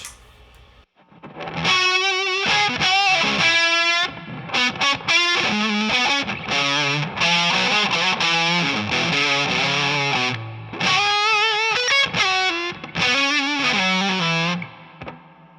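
Electric guitar played through an O.C.E. Hammer, a Big Muff-style fuzz pedal, giving a heavy distorted fuzz tone. It plays a riff of sustained notes with bends and vibrato, with a couple of brief pauses. The player feels this setting would cut through on a stage.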